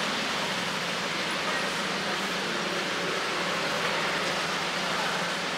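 Steady noise of cars idling and moving slowly: an even hiss with a faint low hum and no revving.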